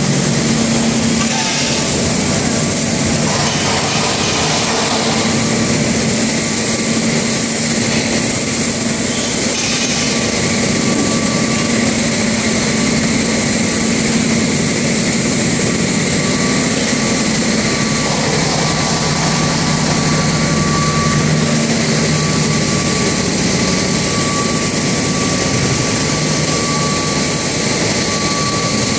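PP woven bag and PE film washing line running: loud, steady machinery noise of motors, conveyor and water spray washing, with a low hum and a thin higher whine that comes through more clearly after about ten seconds.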